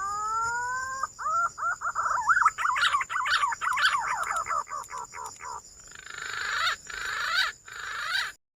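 Green pigeon (punai) song: a long rising whistle, then a fast run of warbling whistled notes, then a rougher, harsher stretch that cuts off abruptly near the end. A steady high whine runs behind it.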